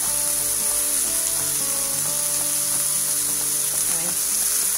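Frying pan of onion, garlic and salt cod in olive oil sizzling steadily, over background music with held notes.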